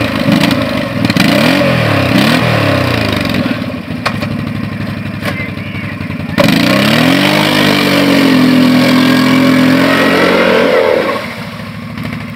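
ATV engine revving up and down as the quad churns through deep muddy water. About six seconds in it revs up hard and holds a high, steady pitch for several seconds, then falls away near the end.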